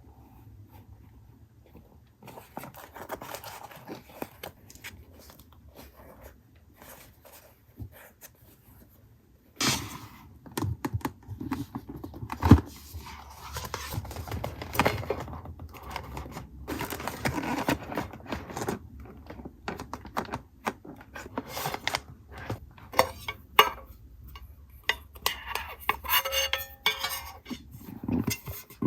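Paper and small stationery items being handled on a desk: faint rustling at first, then from about ten seconds in a busy run of taps, clicks, paper rustles and scrapes as small hard items are picked up and set down.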